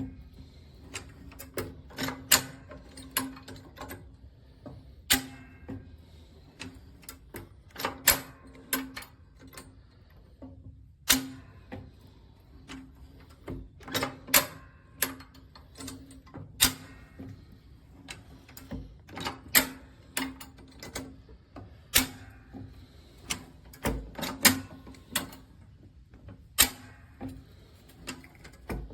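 Irregular sharp clicks and knocks, about one or two a second, over a steady low hum.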